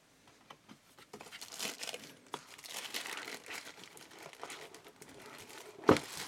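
Thin plastic wrapping crinkling as it is lifted and pulled back from around a boxed speaker, starting about a second in. A single thump near the end.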